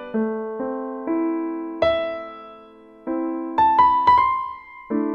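Background music: a keyboard melody of single struck notes, each ringing and fading before the next, with a brief gap about three seconds in.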